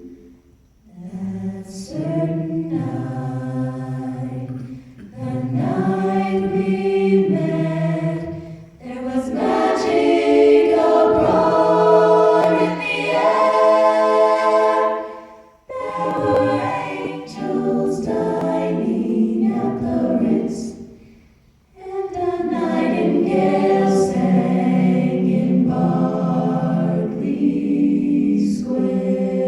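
A chamber choir singing in several parts, in phrases a few seconds long with brief pauses between them.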